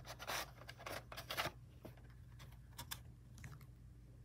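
A VHS cassette being slid out of its cardboard sleeve: short faint scrapes and clicks of card and plastic, most of them in the first second and a half, with a few more about halfway.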